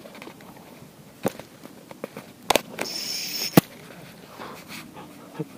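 Sharp clicks and knocks from hands working an ultralight spinning reel and rod, with a short high hiss a little under three seconds in.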